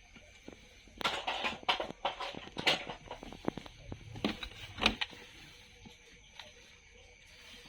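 Toy-unboxing handling noise: a run of rustling, clicks and light knocks of plastic toys and packaging being handled, starting about a second in and lasting about four seconds.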